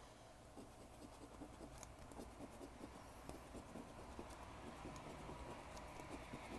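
A coin scraping the scratch-off coating off a lottery ticket in many quick, short strokes, faint.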